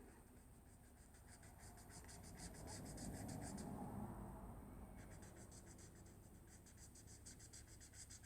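Faint, quick back-and-forth strokes of a colouring tool rubbing on paper, about five a second. They pause for about a second midway, then resume.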